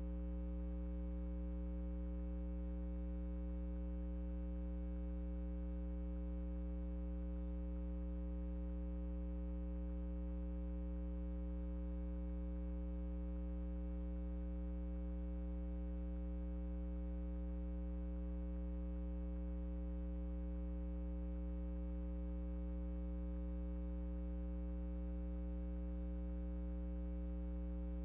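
Steady electrical mains hum: a low drone with a buzzy ladder of evenly spaced higher tones, unchanging in pitch and level.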